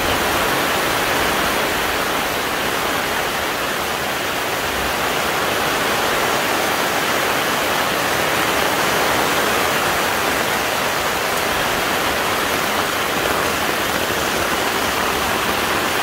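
Heavy rain pouring in a windstorm onto and around a camping canopy: a steady, dense rushing hiss that does not let up.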